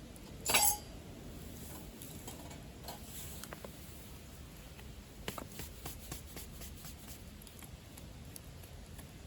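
Wood fire crackling in a secondary-combustion fire-pit stove, with one loud pop about half a second in and scattered small crackles after it over a low steady burn.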